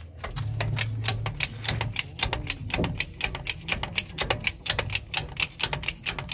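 Hydraulic bottle jack being pumped up under the truck's rear axle: a fast, slightly uneven run of sharp metallic clicks, about five a second.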